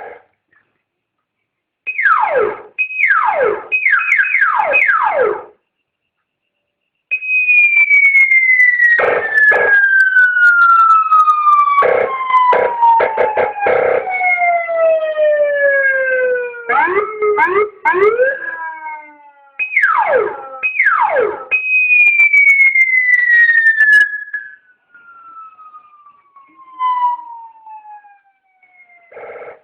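Electronic police-escort siren cycling through its tones: bursts of short falling chirps, long slow wails that glide from high to low, and several short blasts of its bassy electronic air-horn tone over the wail. It stops briefly between patterns.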